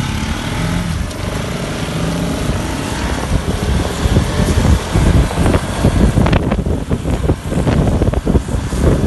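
Motorcycle engine running while riding, with wind buffeting the microphone, the buffeting turning gusty about four seconds in.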